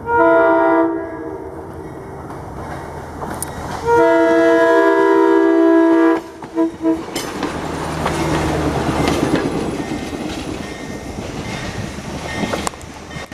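Budd RDC self-propelled diesel railcar sounding its multi-note horn for a road crossing: a blast of about a second, a longer blast of about two seconds, then two quick short toots. After the horn, the railcar runs past and away with a broad rumbling rail noise and a few sharp wheel clicks near the end.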